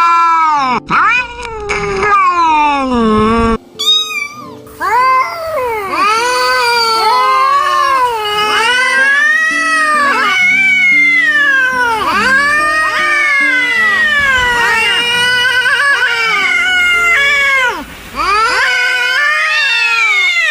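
Angry cat caterwauling: long, wavering yowls that rise and fall, one after another, with a short break about three and a half seconds in.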